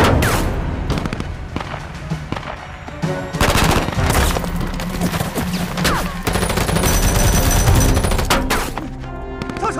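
Gunfire in several bursts over tense background music.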